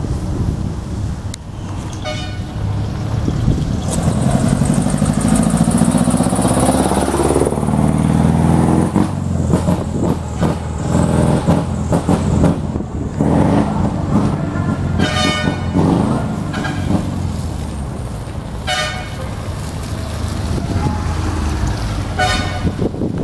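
Heavy truck engines passing on a wet road, one rising in pitch as it accelerates, with several short horn toots through the second half.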